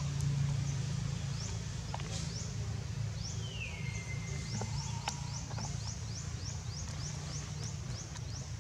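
Outdoor ambience: a steady low rumble under a rapid series of short, high, rising chirps at about three a second. About three and a half seconds in, a single whistled call slides down in pitch and then holds, followed by a brief, lower steady tone.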